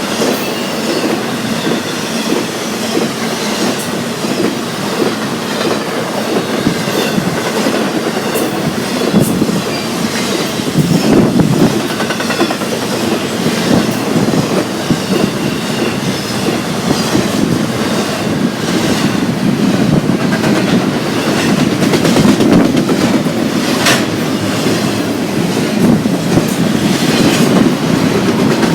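Freight train cars rolling past at track side, wheels clicking over rail joints in a steady, continuous run.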